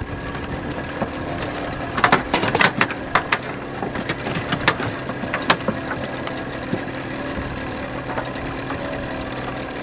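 A motorboat engine idling steadily, with a run of sharp knocks and clatters in the middle as oars and gear are handled in the rowing boat.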